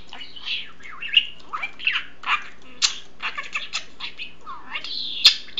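Pet budgerigar chattering: a rapid warble of short chirps and squawks that slide up and down in pitch. A sharp click comes about five seconds in.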